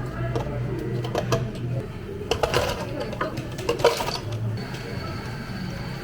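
Cups, dishes and utensils clinking and knocking as drinks are made behind a cafe counter, with two brief rushes of noise in the middle. A faint steady high whine starts a little past halfway.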